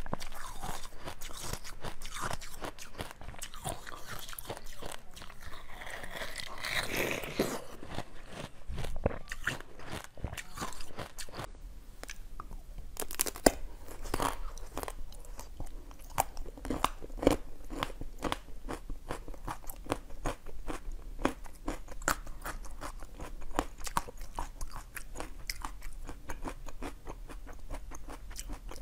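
Close-miked eating sounds: soft wet bites and squishing of jelly, then, from partway through, dense crisp crunching as a frozen bar is bitten and chewed, many sharp cracks a second.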